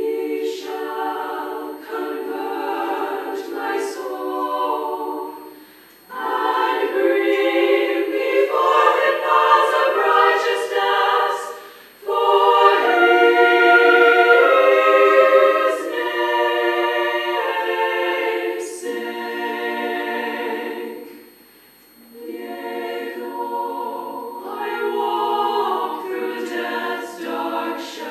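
Women's choir singing a cappella, in long phrases broken by three brief pauses.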